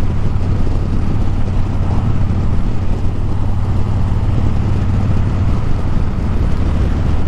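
Harley-Davidson Breakout's V-twin engine running steadily at cruising speed, with wind noise on the microphone.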